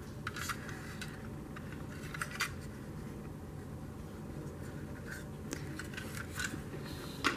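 A toy fire truck being handled over a wooden tabletop: scattered light clicks, knocks and soft rubbing, the sharpest about two and a half seconds in and near the end, over a faint steady hum.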